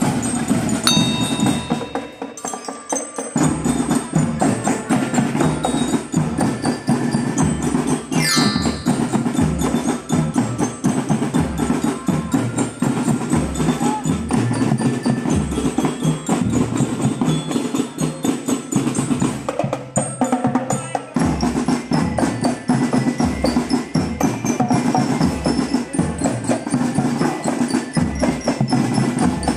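Marching drum band playing, with snare and bass drums keeping a steady beat under a glockenspiel-like bell-lyre melody. It breaks off briefly about two seconds in and again around twenty seconds in.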